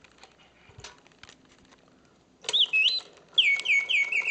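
Mechanical bird song from a 1969 Reuge singing bird cage's bellows-and-whistle mechanism. After a few faint clicks, the whistle starts about halfway through with a couple of rising and falling whistles, then breaks into a rapid trill of quick descending chirps, about six a second.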